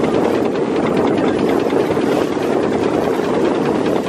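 Steady running noise of a steam launch under way, a mix of engine and water rushing past the hull, with a faint regular beat.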